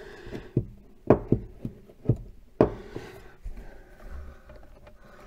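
Handling noise from an MGB handbrake lever assembly being worked loose: about seven irregular knocks and clicks of the lever and its fittings, mostly in the first three seconds, quieter after.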